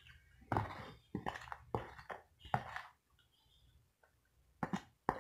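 Plastic tub of baked cornstarch being handled and scooped: a run of short scraping, crackling noises, four in the first three seconds, the first the loudest, then one more near the end.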